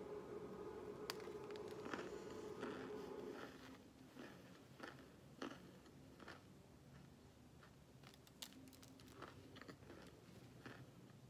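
Oven-baked cornstarch chunks crunching and crumbling between fingers over foil: a scatter of soft, crackly crunches. A steady hum sounds under the first few seconds and then stops.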